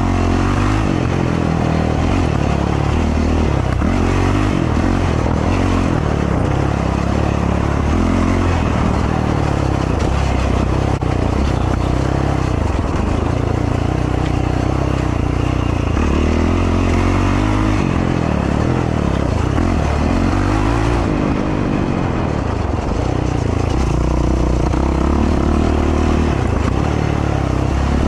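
Race ATV's engine running hard along a dirt trail, its revs rising and falling again and again with the throttle.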